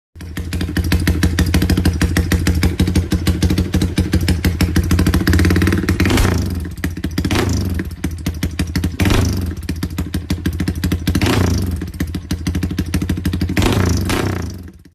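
Modified Yamaha Y15ZR (Exciter/MX King 150) single-cylinder four-stroke running through an aftermarket exhaust with a fast, choppy exhaust beat, blipped on the throttle about five times.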